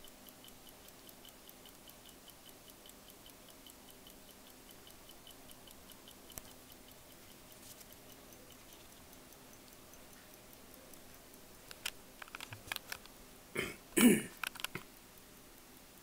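Swiss-made Waltham 17-jewel pocket watch ticking with rapid, even ticks, running steadily. Near the end the watch is picked up and turned over in the hand: a run of clicks and a loud rubbing of fingers on the metal case.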